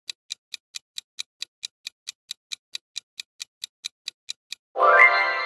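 Clock-style countdown ticking sound effect of a quiz timer, about four to five even ticks a second. Near the end the ticking stops and a louder ringing chime sounds and slowly fades, marking time up on the question.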